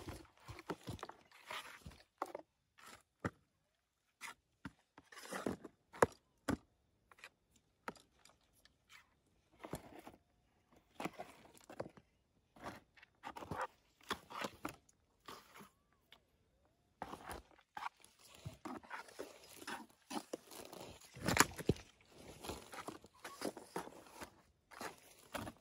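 Irregular crunching and scraping on stony, gravelly ground, in short bursts with brief quiet gaps between them.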